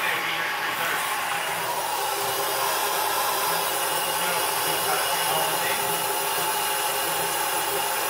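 Steady hiss of shop compressed air pressurising the Ford 6.0L Powerstroke's high-pressure oil system during an air test, escaping at a leak that the mechanic suspects is failed injector O-rings.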